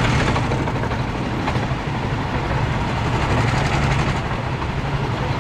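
Several go-kart engines idling together, a steady low hum.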